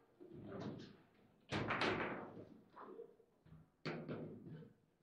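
Sharp hard knocks of play on a table football table, the ball struck by the players' rod figures and rattling against the table. There is a quick pair of loud knocks about a second and a half in and another just before four seconds, with lighter clacks between.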